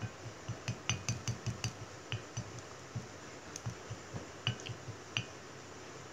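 Wooden chopsticks clicking and tapping against a ceramic bowl. There is a quick run of light clicks in the first couple of seconds, then a few scattered ones.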